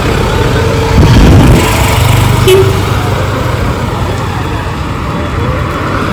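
Road traffic: motor vehicles running past, one passing close about a second in, with a short horn beep about two and a half seconds in.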